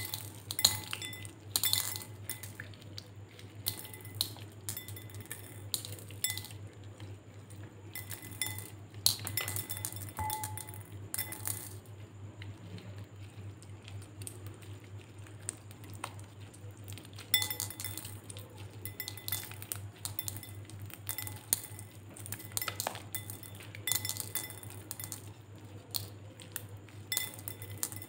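Glossy slime studded with small beads being squeezed and kneaded by hand over a glass bowl: irregular clusters of sticky clicks and pops, with beads clinking against the glass. A steady low hum lies underneath.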